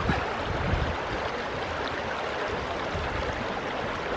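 Shallow mountain stream rushing over stones: a steady wash of running water.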